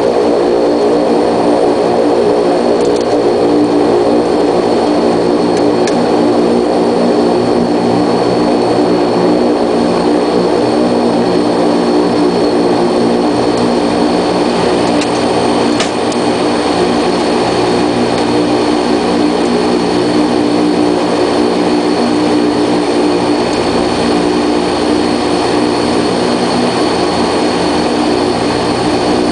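Antonov An-32's two AI-20D turboprop engines running steadily while the aircraft rolls out and taxis after landing, heard from inside the aircraft: an even, loud drone of propeller tones with a steady high turbine whine above it.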